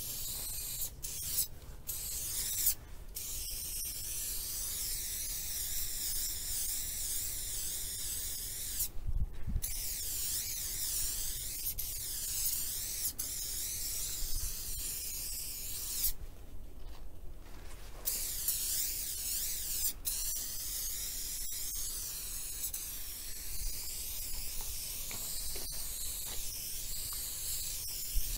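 Aerosol spray-paint can hissing in long, wavering bursts that stop briefly several times, over a steady low rumble.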